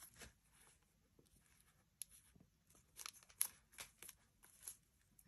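Faint rustling and a few light taps as paper and tape-covered card are handled and pressed flat onto a book page by hand, with short crinkles about two, three and three and a half seconds in.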